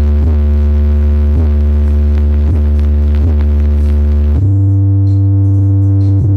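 Bass-heavy electronic music at high volume: long, sustained deep bass notes cut by short dips about once a second, shifting up to a higher bass note about four seconds in.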